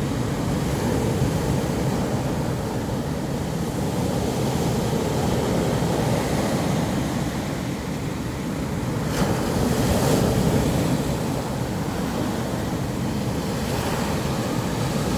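Sea waves washing in on a pebble beach: a steady rush with one louder surge about nine seconds in.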